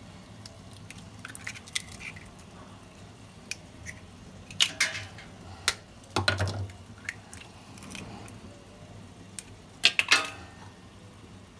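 Two raw eggs tapped against the rim of a plastic tub and broken open into milk. A series of sharp taps and shell cracks, the loudest halfway through and near the end.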